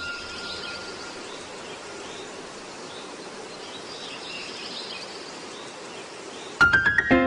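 Outdoor ambience: a steady hiss of background noise with faint bird chirps. Near the end, a quick run of plucked notes climbs in pitch as music starts.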